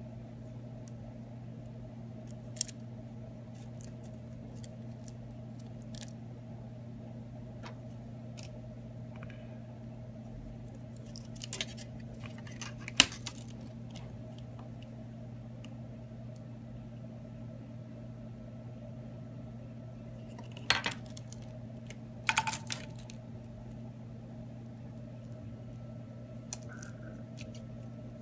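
Scattered small clicks and taps of hand tools and small metal parts being handled on a workbench during an iPhone 6 teardown, the sharpest clicks about halfway through and a few more around two-thirds of the way, over a steady electrical hum.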